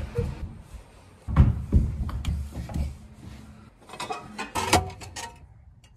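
Heavy footsteps on a wooden floor, then the hinged brass flap of a front-door letterbox clacking open and shut several times in quick succession.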